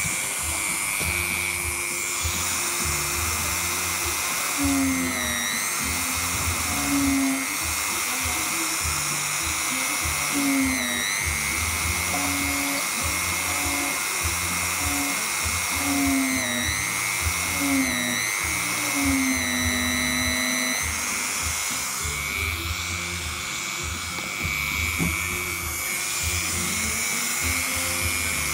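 Background music with a melody, over a steady high whine from a small motor.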